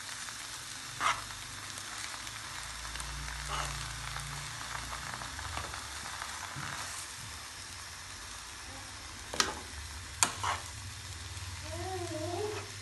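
Potato samosa filling frying in an oiled pan with a steady sizzle while a metal spoon stirs and scrapes it, clinking sharply against the pan a few times, most loudly near the end.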